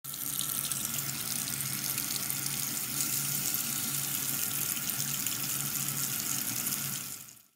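Water running from a tap in a steady stream, starting suddenly and fading out near the end.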